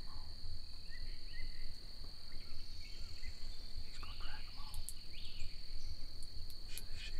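Steady high-pitched insect drone, with several short bird calls and a low rumble underneath.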